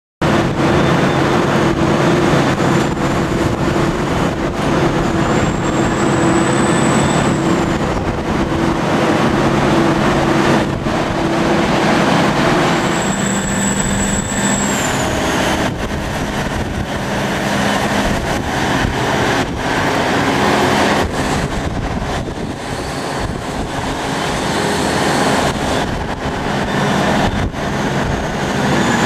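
Large hydraulic excavator of a backhoe dredger at work. Its diesel power pack and hydraulics run as a loud, steady drone whose pitch shifts near the middle, and a high whine rises and falls a few times.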